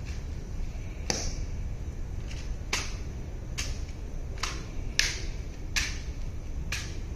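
About seven sharp metallic clicks at irregular intervals, the ceremonial guard's heel taps and rifle being handled as he turns and shifts arms, over a steady low outdoor rumble.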